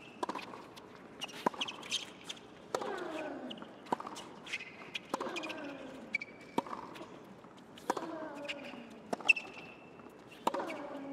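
A hard-court tennis rally. Racket strikes on the ball come about every 1.3 s, a player gives a falling grunt on every other shot, and sneakers squeak on the court between strikes.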